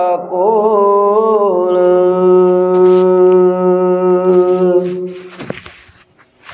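A man singing a devotional Punjabi hymn line. He draws out its last syllable with a few ornamental turns, then holds one long steady note that fades away about five seconds in. A short breath follows near the end.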